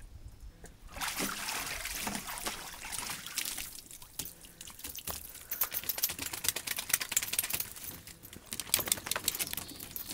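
A wet dog getting out of a plastic kiddie pool: water splashes and streams off it starting about a second in, then drips and trickles onto a wooden deck, with many sharp taps of paws and drops on the boards.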